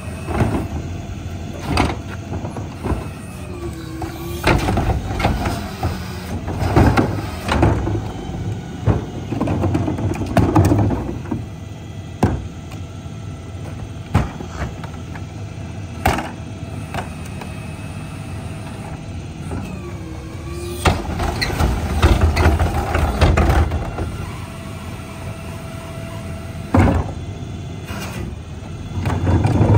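A CNG-powered McNeilus rear-loader garbage truck idling while plastic trash carts are emptied by its hydraulic cart tippers. There are repeated knocks and bangs of carts and lids against the tipper, and twice a rising and falling hydraulic whine as a cart is lifted and dumped. Near the end the truck gets suddenly louder as the packer begins its cycle.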